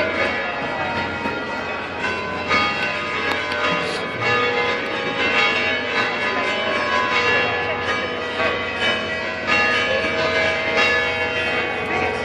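Church bells ringing the midday peal: several bells struck in quick succession, their tones overlapping and ringing on without a break.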